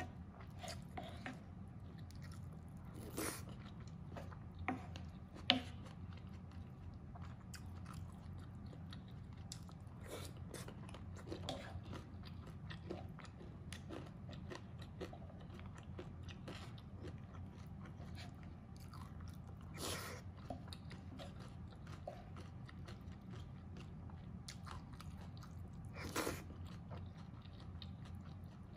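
Close-miked chewing and biting of mapo tofu with rice, with scattered small clicks and a few sharper ones, over a steady low hum.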